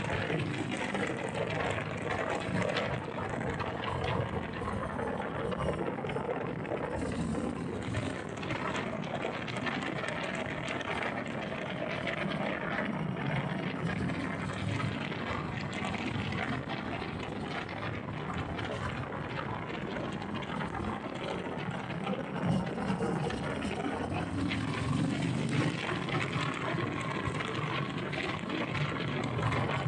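Steady rush of wind buffeting the microphone while riding a 2020 Harley-Davidson Sport Glide, with the bike's Milwaukee-Eight 107 V-twin running underneath.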